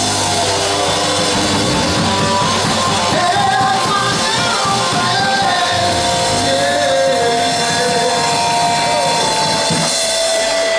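A rock band playing: drum kit and electric guitar, with a voice singing over them.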